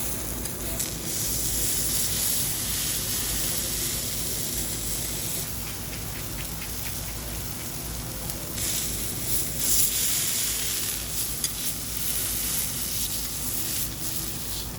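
Beef sirloin sizzling steadily on a hot teppanyaki iron griddle, a continuous frying hiss that swells and eases, with a few light clicks.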